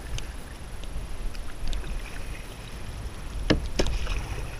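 Kayak paddling: water splashing and dripping off the double paddle's blades as it dips and lifts, over a steady low rumble, with two sharp clicks close together about three and a half seconds in.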